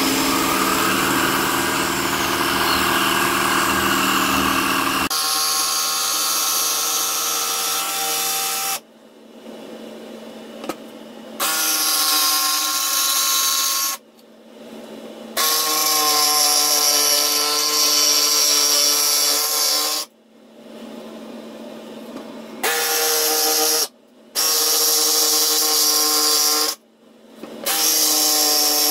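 Jigsaw running in about six stretches that stop and start abruptly, the first the longest, trimming the edge of an HVAC return vent down to fit.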